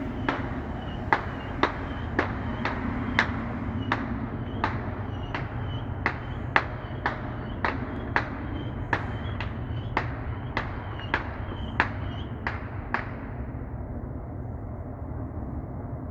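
Railroad crossing bell ringing in a steady beat of about two strikes a second, with a low rumble underneath; the bell stops about 13 seconds in.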